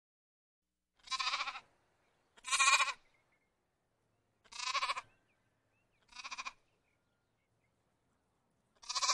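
Lamb bleating: five short bleats, spaced a second or two apart, the last one near the end.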